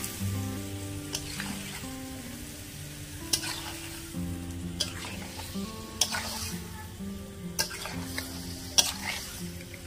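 Chicken pieces and potatoes sizzling in curry masala in a metal kadhai while a metal ladle stirs them, scraping and clanking against the pan about six times. Soft background music underneath.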